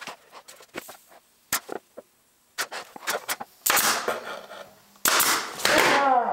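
Pneumatic nail gun firing several nails into the plywood, each a sharp snap, followed by louder noisy handling sounds in the second half.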